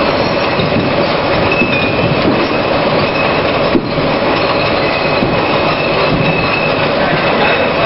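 Bottle labelling line running: green glass bottles rattling and knocking against each other on the conveyor as they feed through a self-adhesive labeller, a steady dense clatter over the machine's running noise with a faint steady whine.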